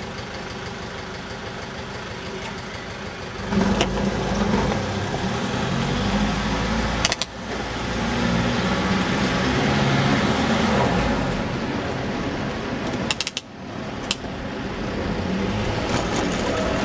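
Road traffic heard from a moving bicycle: a van's engine running close alongside, with a rushing, rumbling noise that grows louder about three and a half seconds in as the bike and van get moving, and a few sharp clicks.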